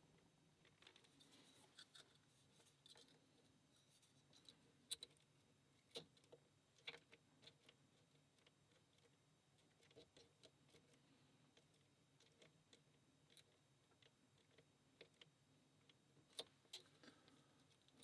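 Faint metallic clicks and light scraping of a lock pick and tension tool working the pins inside a pin-tumbler lock, with a few sharper clicks scattered through.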